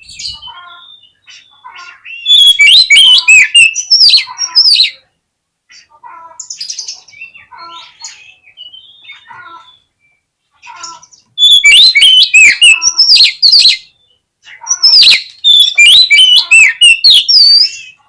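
Oriental magpie-robin (kacer) in full song: three loud bursts of rapid, varied whistles that sweep up and down, with softer scattered chirps between them.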